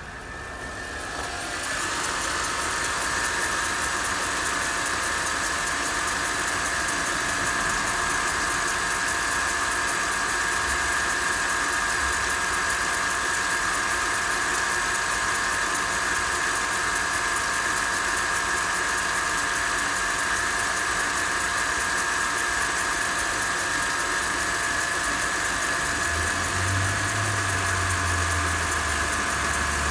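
Mercedes M273 V8 idling after a cold start, with a steady high squeal and rubbing from the accessory belt drive, growing louder over the first two seconds. It is a friction noise that the owner suspects comes from the belt, the idler pulleys or the tensioner, with the belt seen wandering on a pulley.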